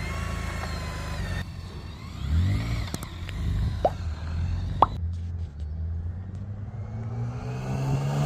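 BMW K 1600 GT motorcycle's inline-six engine idling steadily, then revving as the bike pulls away. Two brief sharp chirps come about a second apart midway, and the engine rises again near the end.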